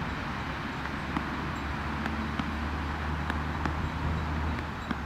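A low, steady engine hum, such as a nearby vehicle running, that fades in about a second and a half in and stops near the end, over open-air background noise with a few faint clicks.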